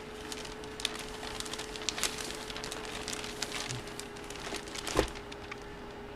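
Faint crinkling and light clicks of trading-card packaging being handled, with one soft knock about five seconds in, over a faint steady hum.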